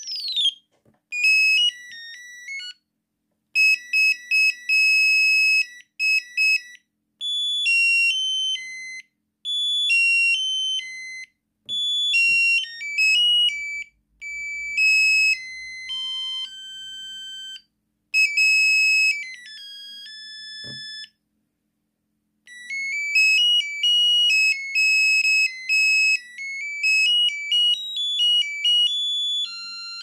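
Samsung SGH-R210S mobile phone playing its built-in ringtones through the phone's speaker, one after another: short, high-pitched electronic melodies of stepped beeping notes, each lasting a few seconds before a short gap and the next tune.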